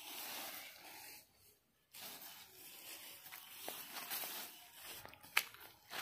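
Grass and weeds being torn up by hand, with the dry vegetation rustling and crinkling, a short break about a second and a half in, and a sharp snap about five seconds in.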